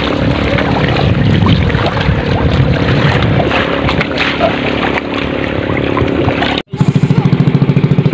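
Outrigger boat's engine running under way, a steady drone under a loud rushing noise. After a brief cut near the end, the engine is heard close up as a rapid, even pulsing beat.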